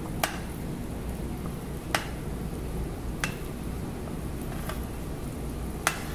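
A pot of minced saluyot (jute leaves) with chicken bubbling at the boil, with five sharp clicks of the ladle against the pot as it is stirred.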